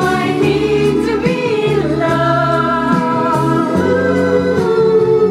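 A group of women singing together into a microphone over a backing track, holding long notes with no clear words.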